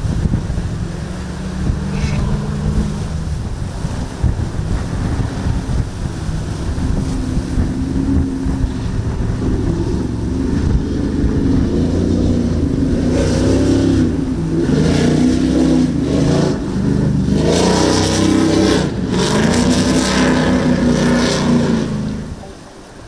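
Offshore performance powerboat's engines running hard through choppy water, the pitch rising and falling as the boat rides over the waves and growing louder as it passes close by. Wind rumbles on the microphone at first, and the engine sound drops away sharply just before the end.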